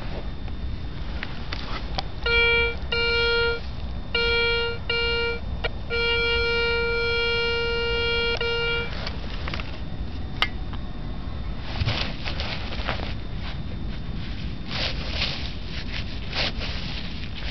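Garrett ACE 250 metal detector signalling a buried metal target: two pairs of short beeps, then one long steady tone of about three seconds, all at one pitch. After it, rustling in grass and soil.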